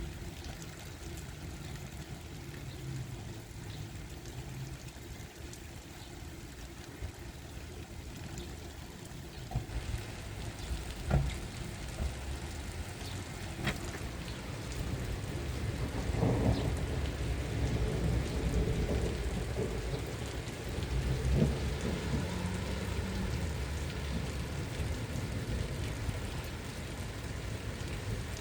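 Steady rain with thunder rumbling, swelling about halfway through. Two sharp taps come a little before that.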